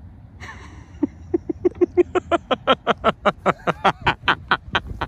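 A man laughing hard: a long, even run of quick "ha" bursts, about five a second, starting about a second in.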